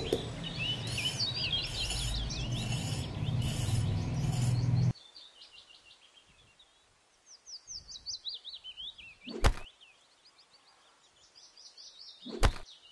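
Birds chirping in quick, falling trills. For the first five seconds a small trowel scrapes across sand, and this stops abruptly. Later come two sharp knocks about three seconds apart.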